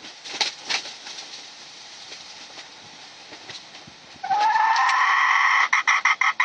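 A hen's beak tapping a few times on a motorcycle's chrome engine cover. About four seconds in, a loud pitched call starts, rising slightly and held for about a second and a half, then breaking into rapid pulses about six a second.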